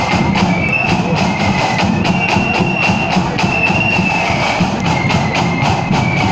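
Marching flute band playing a tune: high flutes carrying the melody in held, stepping notes over a steady beat of snare and bass drums.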